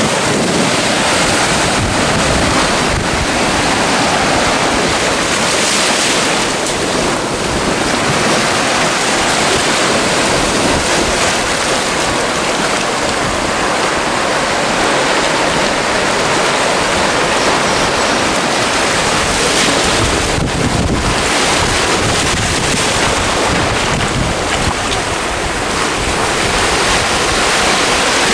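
Surf breaking and washing over a rocky shoreline, a steady wash of noise, with wind buffeting the microphone.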